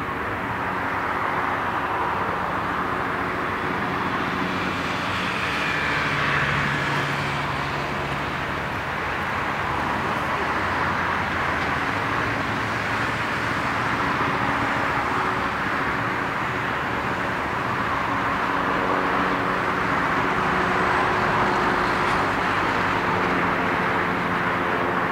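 Jet engine noise from a Boeing 747-400's four turbofans as the airliner touches down and rolls out along the runway. It is a steady, even noise with a few faint engine tones under it, swelling slightly about six seconds in and again near the end.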